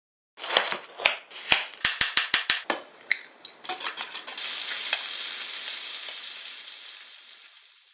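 Food frying in hot oil: a run of sharp crackles and pops, then a steady sizzle that slowly fades away.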